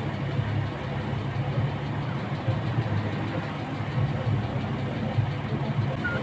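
Crane truck's engine idling steadily, a continuous low hum.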